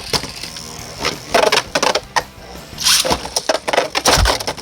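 Two Beyblade spinning tops, one 3D-printed, clashing in a plastic battle stadium: clusters of sharp clacks and rattling hits as the tops strike each other and the stadium walls, the hardest hits a little over a second in and again around three to four seconds in.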